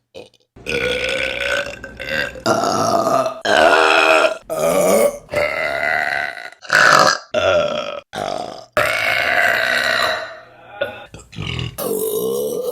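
A rapid series of loud burps from different women, about a dozen in a row, each cut hard against the next. They are pitched and drawn-out, some sliding down in pitch as they end.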